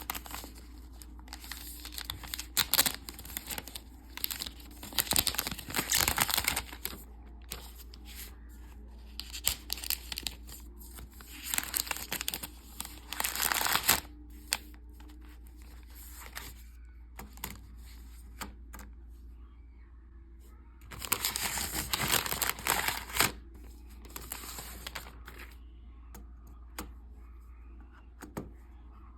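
Keyboard box packaging being torn open and crinkled, in repeated bursts of a second or two with quiet pauses between.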